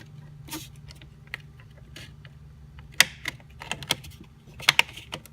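Irregular plastic clicks and taps as wiring clips and plastic engine-bay parts are handled and pushed into place, the sharpest about three seconds in and a quick cluster near the end, over a steady low hum.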